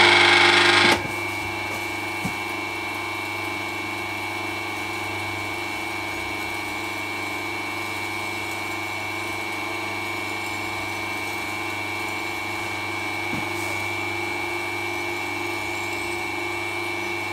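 Three-phase electric motor of a homemade powered ring roller, run on single phase through capacitors, starting with a loud burst for about the first second as the extra start capacitors fire it up. It then runs steadily with a high whine and a low hum while rolling a steel bar, and cuts off just before the end.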